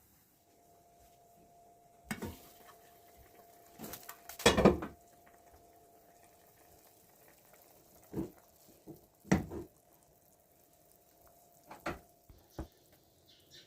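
Pots, pans and utensils knocking and clattering in a few separate bursts, the loudest cluster about four to five seconds in, over a faint steady hum.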